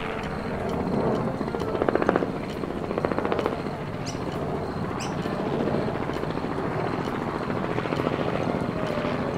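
Helicopter sound effect: rotor blades chopping with a fast, even beat over a steady engine drone, swelling louder about two and three seconds in.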